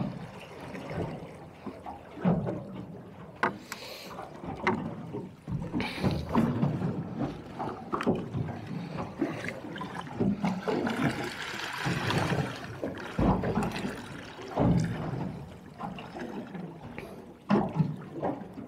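Choppy sea slapping and splashing against the hull of a small anchored boat, with irregular knocks throughout and a bigger splash about eleven seconds in.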